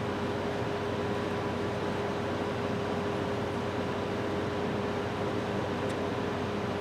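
Steady hum and hiss of a running electric machine, with a constant tone that does not change.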